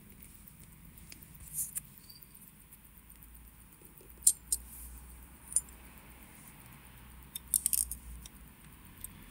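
Small, sharp clicks and taps of tweezers and tiny parts against a wristwatch movement during hand assembly. They come irregularly: a pair about a second and a half in, the sharpest around four seconds in, and a quick cluster near eight seconds.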